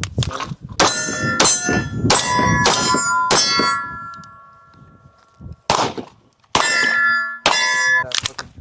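Pistol shots hitting steel targets, each hit ringing with a clang that hangs on: about five shots in quick succession, a pause of a couple of seconds, then four more.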